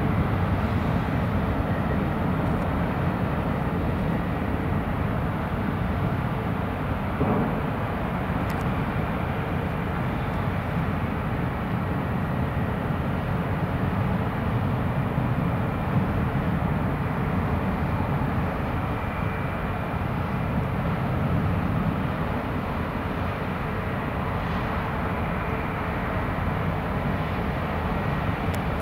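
Steady low rumble of the ro-pax ferry Mecklenburg-Vorpommern's engines and propellers churning the water as it manoeuvres into its berth.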